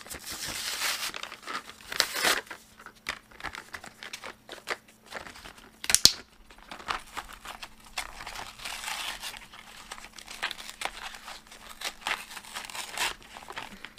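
Plastic blister packaging and cardboard backing of a washi tape set being crinkled and torn open by hand, in uneven spells of crackling and ripping, with one sharp crack about six seconds in.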